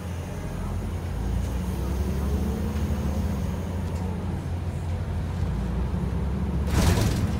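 City transit bus heard from a passenger seat while under way: a steady low engine and drivetrain drone that grows louder about a second in, with a faint rising whine as it gathers speed. A short burst of hiss comes near the end.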